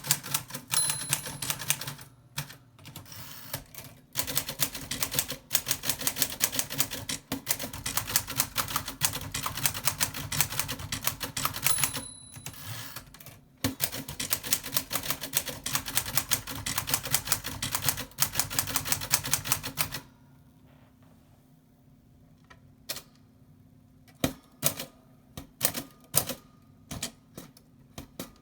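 A 1940 Corona Standard typewriter, freshly repaired and cleaned, typed on in fast runs of keystrokes and typebar strikes, with a short bell ding about a second in and again near twelve seconds. After a pause around twenty seconds, single keystrokes come slowly and separately.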